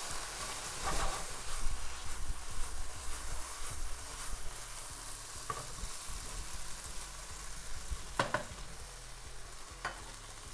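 Sweet potatoes, eggplant and chicken sizzling in a small non-stick sauté pan, with a steady hiss. A utensil stirring and scraping through them gives irregular clicks, busiest in the first few seconds.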